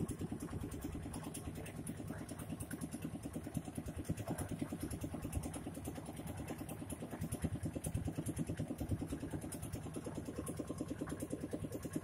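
Engine running steadily with a fast, even pulse, powering a rotating carrot-washing drum as it turns.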